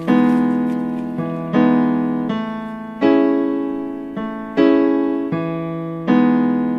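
Background piano music: sustained chords struck in a slow, even pulse, about every three quarters of a second, each ringing and fading before the next.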